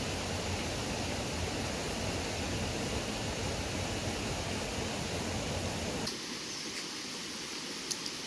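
Steady rushing noise of a waterfall and stream, with a low rumble in the first six seconds that drops away at a cut, leaving an even hiss. A few light clicks sound near the end.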